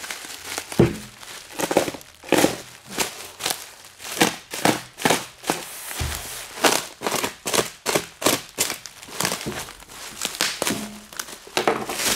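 Plastic bubble wrap being pulled open and handled, crinkling and rustling in many quick, uneven bursts.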